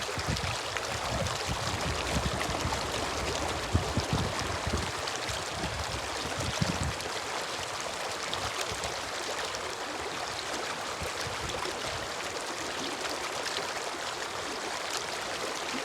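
Water of a waterfall rushing in a steady hiss, with irregular low rumbles over roughly the first seven seconds.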